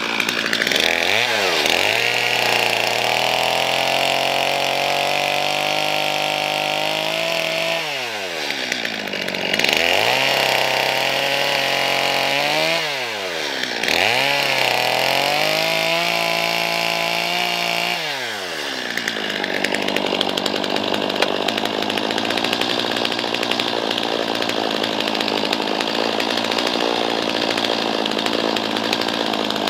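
Chainsaw running at high revs, its pitch dropping and climbing back up several times. After about 19 s it turns to a steadier, rougher noise.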